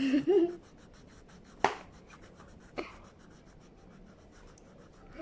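Felt-tip marker worked close to the microphone for ASMR: two sharp clicks about a second apart, with faint rubbing between them.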